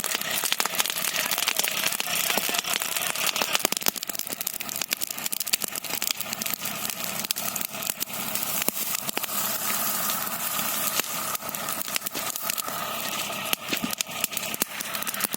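Wood fire in a fireplace crackling, with dense irregular pops and snaps over a steady hiss.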